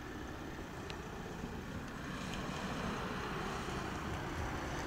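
Distant Airbus A380's Engine Alliance GP7200 turbofan engines running at taxi power: a steady low rumble with a hiss, growing a little louder about two seconds in.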